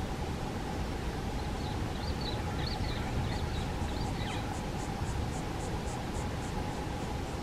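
A bird calling a quick series of short rising-and-falling notes about two seconds in, then an insect's high pulsing at about four pulses a second. Both sit over a steady low rumble.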